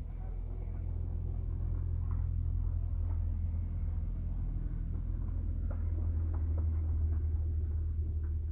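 Low, steady engine rumble that swells over the first couple of seconds and then holds, with a few faint clicks.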